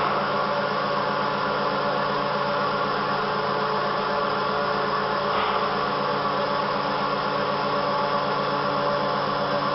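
1997 Motionmaster three-axis CNC router with twin Colombo 12 HP spindles running: a steady machine hum with several held tones, and a brief higher-pitched sound about five seconds in.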